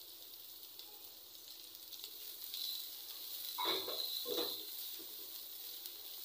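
Chopped onions sizzling in hot oil in a non-stick frying pan while being stirred with a silicone spatula, a steady faint hiss with two louder stirring strokes about three and a half to four and a half seconds in.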